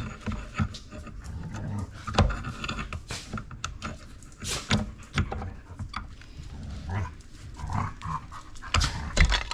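Irregular knocks and clicks of hand tools working at an aluminium water pump casting to free a bolt and rubber stopper lodged in its coolant passage.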